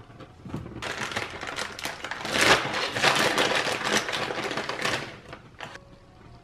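Crinkling and rustling of a plastic dried-fruit bag being handled while raisins are taken out, a dense crackle that starts about a second in and stops about five seconds in.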